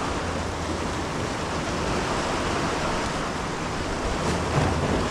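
Steady rush of ocean surf and wind, swelling slightly now and then.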